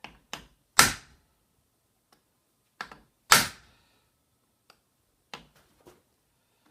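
Hammer blows on steel, trying to drive out a stuck pin in a lathe apron. There are two hard strikes about two and a half seconds apart, each ringing briefly, among lighter metallic taps and clicks.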